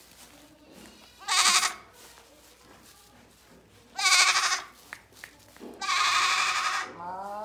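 Boer goat kid bleating: three loud bleats, at about a second, four seconds and six seconds in, the last one the longest, then a lower, wavering bleat starting near the end.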